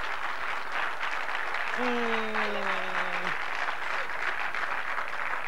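Studio audience applauding. Partway through, one voice calls out a single long note that slowly falls in pitch for about a second and a half.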